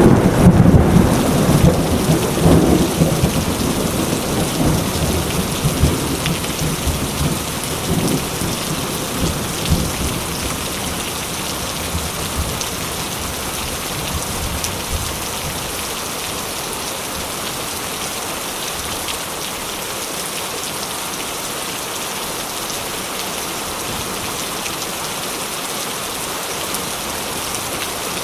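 Steady rain, with a roll of thunder at the start that rumbles away over about the first ten seconds.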